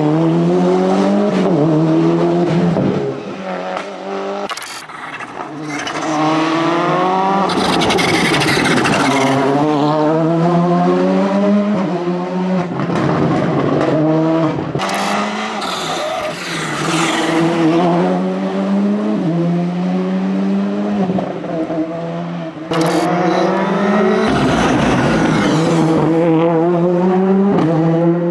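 Rally cars, among them a Mitsubishi Lancer Evolution and a Ford Fiesta rally car, driving hard on a stage, one after another. Their engines rev up through the gears in repeated rising sweeps. The sound jumps abruptly from one car to the next a few times.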